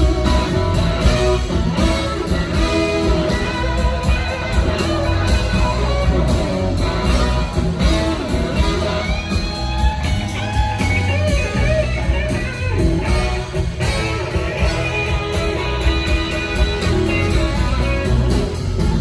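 A live rock band with two electric guitars playing lead over drums and bass, heard loud and continuous from the audience.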